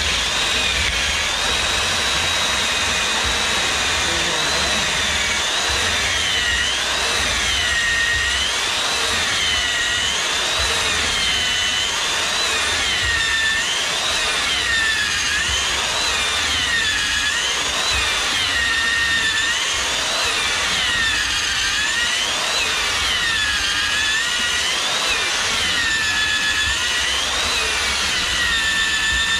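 Corded electric drill running continuously, its long bit boring into a turned wooden blank and chewing out shavings. The motor whine dips and rises again about once a second over a steady rasp of cutting wood.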